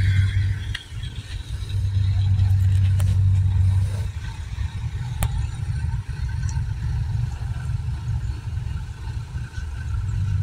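Kubota DC-70G Plus combine harvester's diesel engine running steadily, a low hum that eases off briefly about a second in and again after about four seconds.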